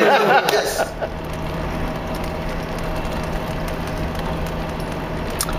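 After a moment of voices, the steady drone of a Toyota Land Cruiser HDJ100 being driven takes over about a second in, heard from inside the cab. It is an even hum of its turbo-diesel engine with road noise.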